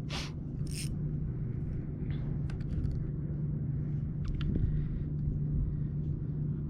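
Low steady rumble with a light hum, with two sharp clicks in the first second and a few faint ticks later, as fishing tackle is handled to swap on a soft plastic grub lure.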